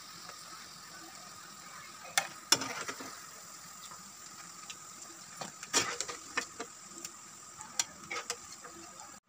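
Biscuits deep-frying in hot fat, a steady sizzle, with a metal slotted skimmer clicking and scraping against the pan several times as the fried biscuits are lifted out.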